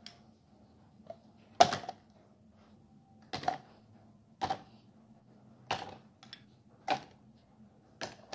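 Ice cubes dropped one at a time from tongs into a clear plastic cup, six sharp clunks about a second or so apart. The first is the loudest, and some cubes knock twice as they settle.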